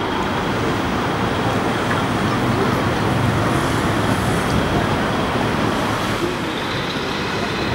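Steady urban road traffic: a continuous low rumble of passing vehicles, with faint voices.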